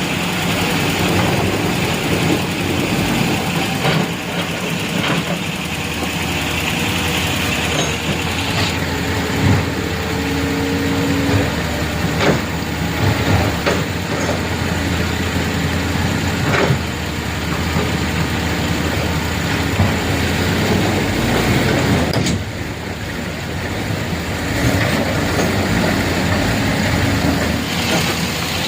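Vehicle engines running and idling in road traffic over a steady hiss, with a few short knocks scattered through.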